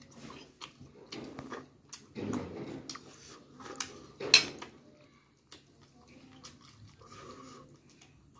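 A man eating puri dipped in chicken gravy with his hand: wet chewing and lip-smacking in short, uneven bursts, with one loud mouth noise about four seconds in.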